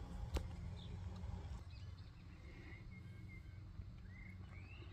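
A bird calling with a few short rising chirps in the second half, over a steady low rumble; a single sharp click about half a second in.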